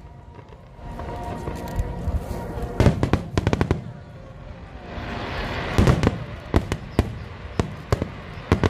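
Fireworks display: a quick cluster of aerial shell bursts about three seconds in, a crackling hiss building near the middle, then single bangs about every half second toward the end. Music plays underneath.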